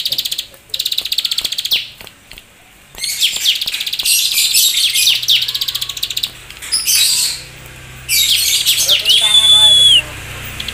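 Caged plain prinia (ciblek sawah) singing: bursts of rapid, chattering high notes, the fast-repeated 'keteran'-style phrases, broken by short pauses. Near the end a single steady whistle-like tone is held for about a second.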